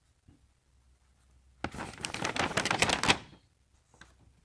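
A large paper instruction sheet rustling and crackling as it is handled and turned over. The rustle starts about a second and a half in and lasts about a second and a half.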